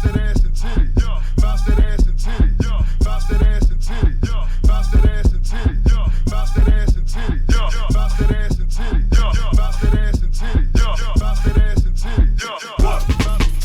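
Hip-hop track with a rapped vocal over a heavy bass beat and regular drum hits; the bass and drums drop out briefly near the end, then come back in.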